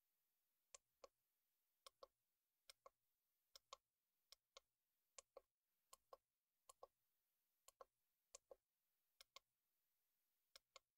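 Front-panel arrow button of a Lactoscan S milk analyzer clicking as it is pressed about a dozen times at a steady pace, each press a quick double click. The presses step the pH buffer value down to enter the low buffer during calibration.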